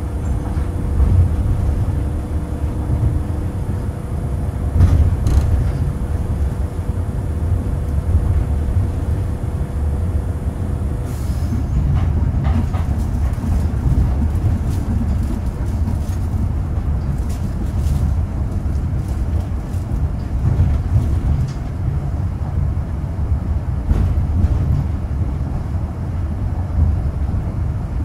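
Running noise of an Osaka Metro Nanko Port Town Line rubber-tyred automated guideway train, heard from inside the cab as a steady low rumble. A faint steady tone runs over it for roughly the first ten seconds, and scattered light ticks come through after that.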